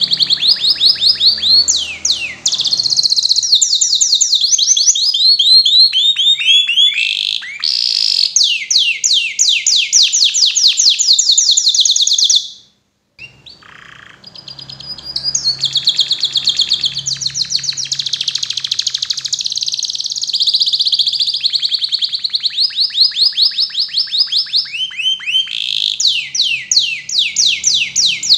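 Domestic canary singing a long song of fast, high trills and rolls, the notes repeated many times a second with a few falling sweeps. There is a brief break about halfway through.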